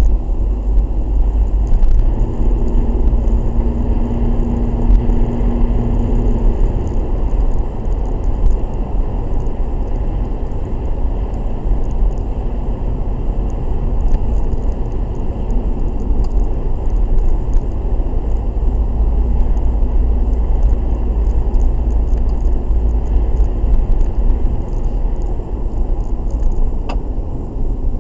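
Car driving in traffic, heard from inside the cabin: a steady low engine and road rumble. A steady hum rides over it for a few seconds about two seconds in.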